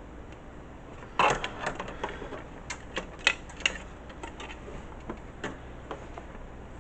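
Irregular clicks and knocks of hardware being handled and fitted inside a desktop computer case, as a hard drive and its SATA cables are worked into place. They start about a second in, several sharp ones in quick succession, then thin out.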